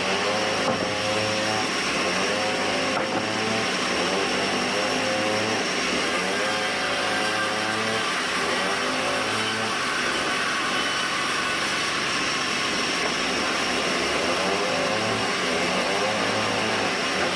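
Band sawmill running, likely cutting hardwood: a steady, loud machine noise with a whine that wavers up and down in pitch every second or two.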